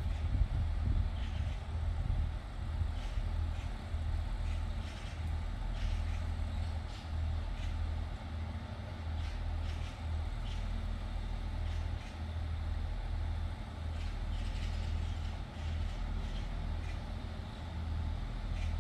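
Pacer diesel railcar running, a steady low engine drone with light irregular clicks and rattles over it.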